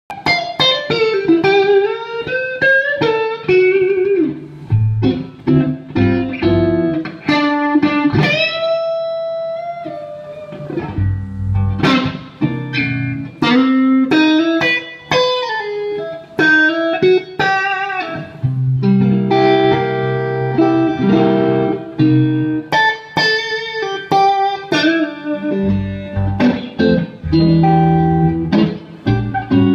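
Telecaster-style electric guitar played through a Bad Cat Siamese Drive pedal into a 3rd Power amp: single-note phrases with string bends, a long held note about nine seconds in, and fuller chords in the second half.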